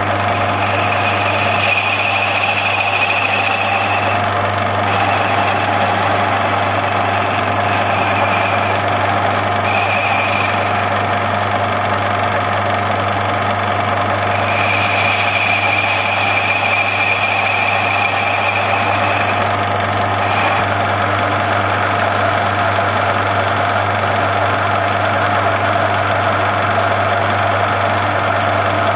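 Metal lathe running steadily with a constant low hum. A higher-pitched whine rises over it three times: near the start, briefly around ten seconds in, and for several seconds in the middle.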